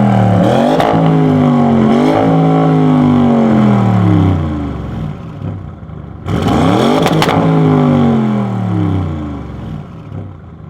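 Audi RS6 C8's twin-turbo V8, running catless downpipes and no particulate filter, revving hard: a loud engine note rising and falling with sharp cracks. It drops away about four seconds in, then a second loud burst starts suddenly about six seconds in and fades away.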